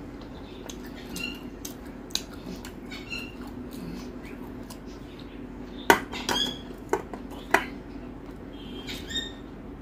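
Stainless steel bowls and plate clinking while curry is served onto rice by hand: four sharp clinks in quick succession about six to seven and a half seconds in, over a steady low hum.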